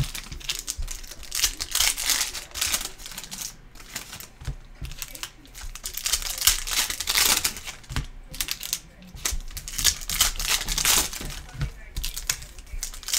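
Foil wrappers of Panini Prizm Fast Break basketball card packs crinkling as the packs are torn open, with quick clicks and flicks of the cards being shuffled through by hand.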